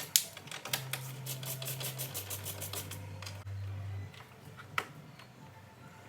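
Workshop tools at work on a car's front end: a quick, even run of clicks for about three seconds with a steady low motor hum that drops in pitch about two seconds in, then a few scattered clicks.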